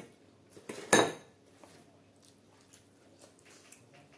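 A dish knocked once with a ringing clink about a second in, just after a softer knock, then faint small sounds of fingers mixing rice on a plate.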